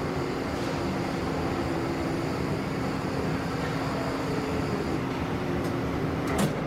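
Steady hum of industrial machinery with one held low tone over an even noise. About six seconds in comes a brief sharp hiss-like burst, with a couple of faint clicks just before it.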